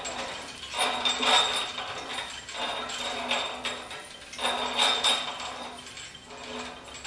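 Harbor Freight hand-cranked tubing roller rolling a 1.5-inch chrome-moly steel tube between its steel rollers: a metallic scraping and squeaking that swells and fades every second or two as the handwheel is turned. The tube is being pressed by the top roller to put a gradual bend in it.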